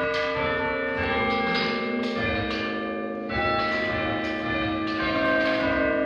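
Church tower bells chimed one after another from a chiming frame of handles and ropes in the ringing chamber, about one or two strikes a second. Each note rings on and overlaps the next.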